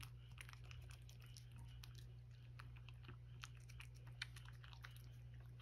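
Faint, irregular wet clicks of a cat chewing its food at a dish, over a steady low hum.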